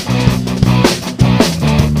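Rock music with distorted electric guitar, bass and a driving drum beat.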